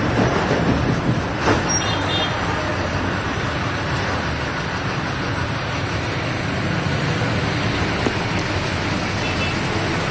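Steady engine and road noise inside a moving MSRTC ST bus, heard from the passenger cabin, with one short sharp knock about a second and a half in.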